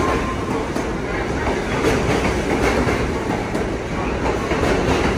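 New York City subway train running past a station platform: a steady rumble of wheels on rails, with repeated clacks as the wheels cross rail joints.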